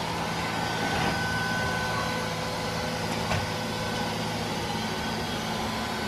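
Neato D6 robot vacuum running: a steady whir from its suction fan and brush, with a thin high whine and a low hum, and a faint knock about three seconds in.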